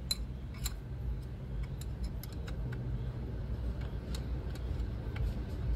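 A Ford Ranger's 3.2-litre five-cylinder diesel engine idling as a steady low hum, with scattered light ticks over it, after its EGR cooler has been replaced.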